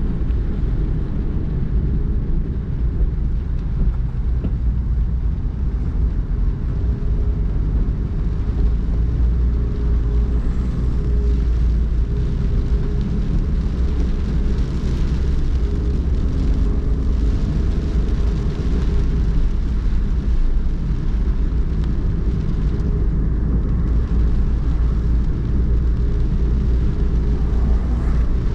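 A car driving on wet city streets: a steady low road rumble of tyres and engine.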